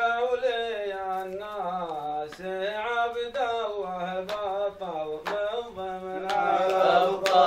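A man chanting Arabic verse unaccompanied, in long, wavering held notes. A few sharp taps sound through it, and the voice grows fuller and louder near the end.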